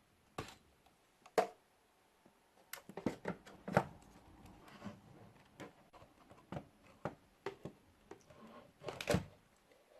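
Scattered light plastic clicks and taps as a foldable quadcopter drone and its parts are handled. The clicks are irregular, with faint rustling between them.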